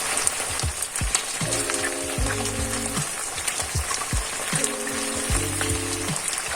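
Food sizzling and crackling as it fries in a pan. Background music with held chords and a steady beat plays along.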